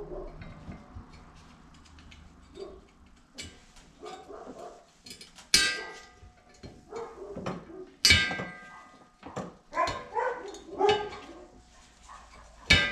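Pliers working a wheel-bearing snap ring out of a steel front hub knuckle: scraping and sharp metal clicks that ring briefly. The three loudest come about five and a half seconds in, about eight seconds in, and near the end.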